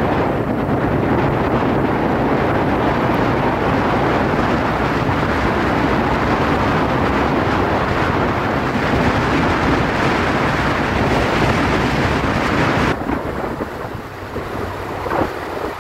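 Heavy wind rushing over the microphone of a moving motorcycle, with the engine running low underneath. About 13 s in the wind noise drops sharply and the sound turns quieter as the bike slows.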